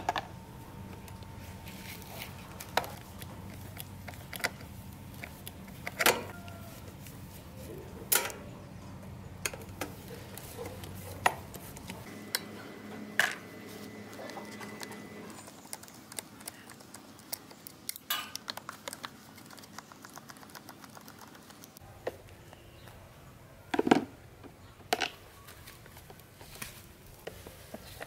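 Scattered sharp clinks and knocks of metal fan parts being handled and worked on while an old pedestal fan is taken apart, a dozen or so separate strikes with pauses between them.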